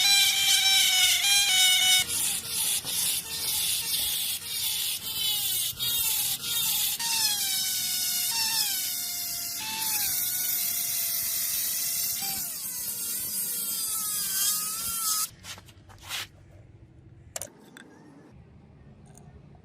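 Small high-speed power tool grinding metal: its motor whines, the pitch sagging and recovering again and again as it bites, with a scratchy crackle. It cuts off about fifteen seconds in, leaving a quieter stretch with a few light clicks.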